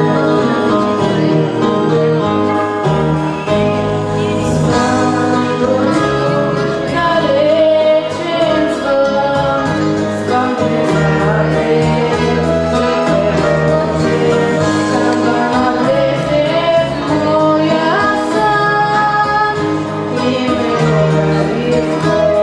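A girl singing a song solo into a microphone, over continuous instrumental accompaniment.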